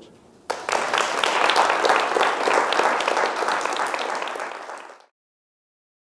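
Audience applauding: dense clapping that starts about half a second in and cuts off suddenly about five seconds in.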